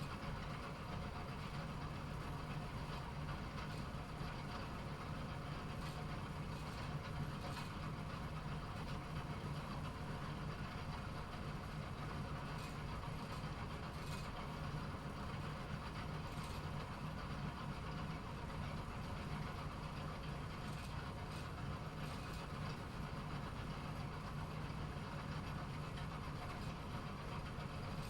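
Bowling alley pinsetter machinery running: a steady low hum with a few faint clicks now and then.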